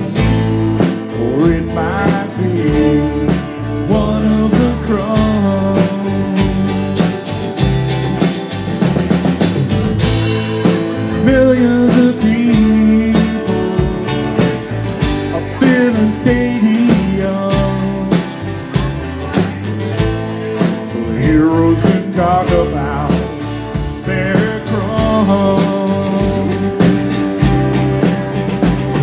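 Live band music: amplified acoustic guitar played over a drum kit, with a bending melody line running through it.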